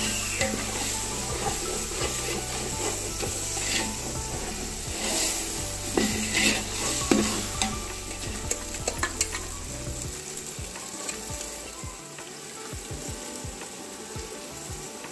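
Metal ladle stirring and scraping a sizzling masala of onion, tomato and mutton in a large metal pot over a wood fire, with scattered sharp scrapes and knocks of the ladle against the pot. The stirring is busiest in the first half and grows quieter after about ten seconds.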